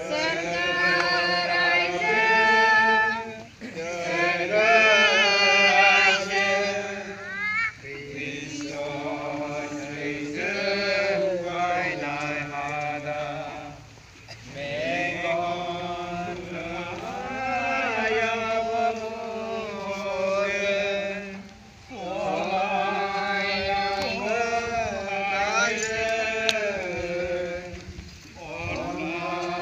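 Worshippers singing a hymn together, in long drawn-out phrases with short breaks between them every few seconds.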